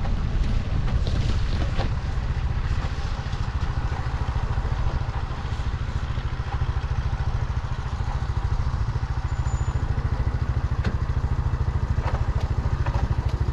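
Honda C90 step-through motorcycle's small single-cylinder four-stroke engine running steadily at a low, even beat, with a few faint clicks.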